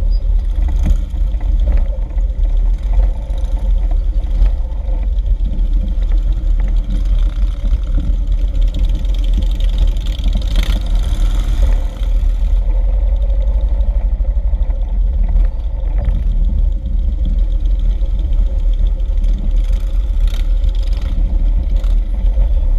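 Many cruiser motorcycle engines running together in a pack, heard from one of the bikes, with a heavy, steady low rumble.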